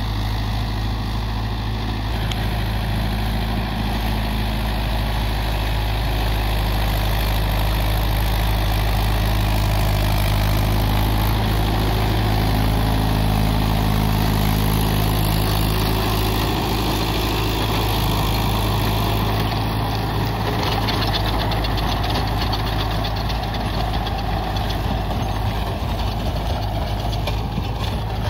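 Mahindra Yuvo 585 DI 4WD tractor's diesel engine running steadily, getting a little louder and shifting slightly in pitch partway through.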